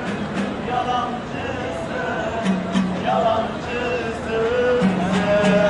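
Street buskers playing music, with a singing voice over a repeated steady low note.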